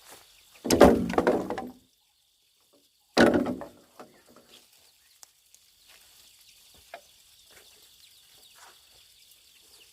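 Two loud wooden clatters about two and a half seconds apart, the first lasting about a second, over a faint steady high insect hum.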